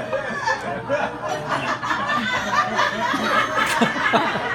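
A small audience laughing and chuckling after a punchline, many voices overlapping.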